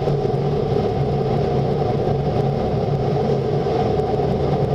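Steady hum and rushing noise of a conveyor tunnel car wash, heard from inside a car's cabin as it passes through.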